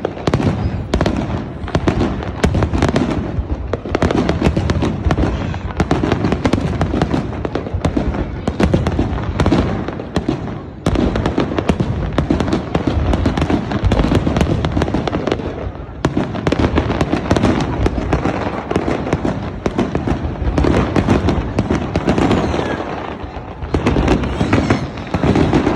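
Fireworks display going off: a dense, continuous barrage of cracks and bangs, with a few brief lulls between volleys.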